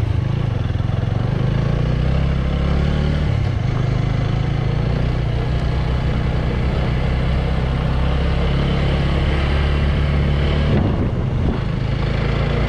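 Motorbike engine running at a steady pitch while riding, with a rushing noise over it; the engine note eases briefly near the end.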